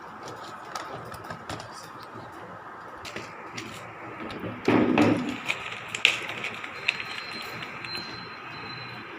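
Scattered small clicks and knocks of tools being handled on a workbench, with one louder rustling thump about five seconds in. A faint steady high tone starts near seven seconds.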